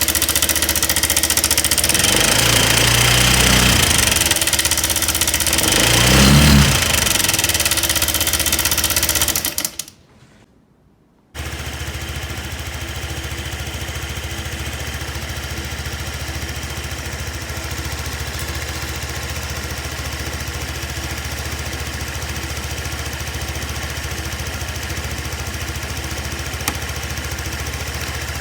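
Honda PCX scooter's single-cylinder eSP engine running with an abnormal noise that the owner suspects comes from the cam chain tensioner. The throttle is blipped twice in the first stretch, the sound cuts out briefly about ten seconds in, then the engine idles steadily.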